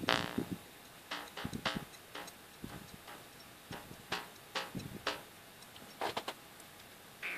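Metal tongue of a homemade wooden jaw harp being flicked and touched by a finger: about a dozen irregular short clicks, the first with a brief twang.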